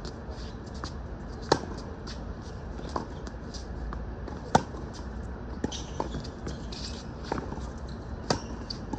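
Tennis ball hit back and forth in a rally: three sharp racquet strikes close by, about three seconds apart, the middle one loudest, with fainter hits and bounces from across the court between them, over a steady low rumble.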